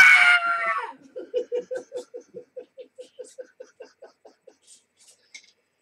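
A person laughing: a loud, high-pitched call that breaks off about a second in, then a long run of quick pulses, about six a second, growing fainter and dying away.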